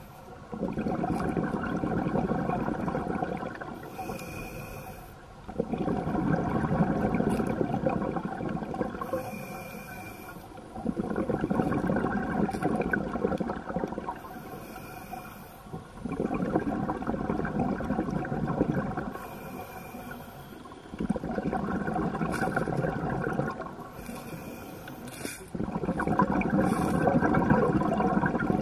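Scuba diver breathing through a regulator underwater. Each breath in is a short hiss, and each breath out is a long rush of bubbling exhaust that lasts about three seconds, about once every five seconds.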